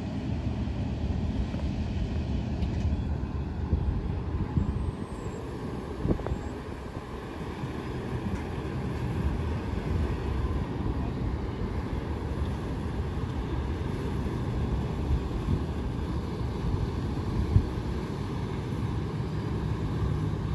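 A train rolling past with a steady low rumble, broken by a couple of brief sharp clanks.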